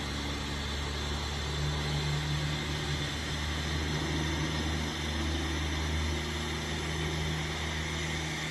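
Steady low mechanical hum, like a motor running, over an even hiss.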